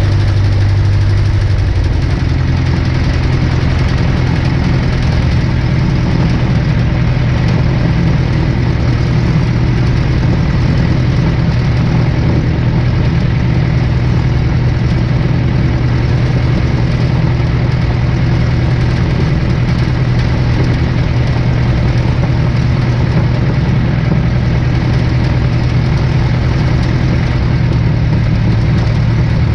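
1947 Aeronca Champ's air-cooled flat-four engine and propeller running steadily at low power on the ground, with a small shift in pitch about two seconds in.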